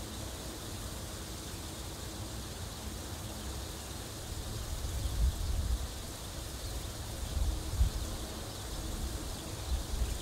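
Wind buffeting the microphone in irregular low gusts over a steady hiss of outdoor noise, the gusts growing stronger about halfway through.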